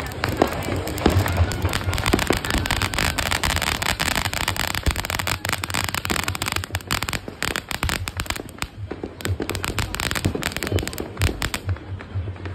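Ground fountain firework spraying sparks: a steady hiss with dense crackling, which dies away near the end.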